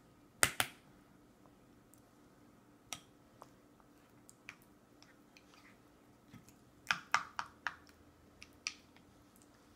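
Sharp clicks and taps of a toddler eating with a plastic spoon from a stainless steel bowl: two loud clicks just after the start, a few single ones, then a quick run of about five about seven seconds in.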